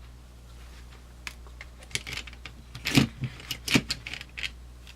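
Small aluminium-scaled Swiss Army pocket knives being handled and set down: a run of sharp clicks and metallic clinks, loudest about three seconds in.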